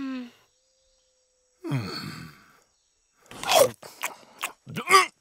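A short, falling thoughtful "hmm" from a cartoon character. About three seconds in come a series of crunchy bites and chewing of a raw parsnip, mixed with muffled vocal grunts.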